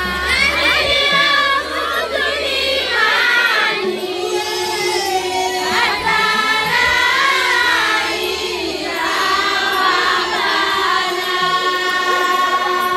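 Women's choir singing a Mahoran déba chant together, many voices on one melody in long phrases.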